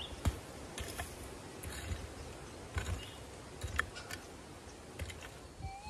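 Scattered light clicks, knocks and scrapes at the ground, about one a second, as of a prospecting pick scraping back soil over a metal detector target, with a low rumble beneath.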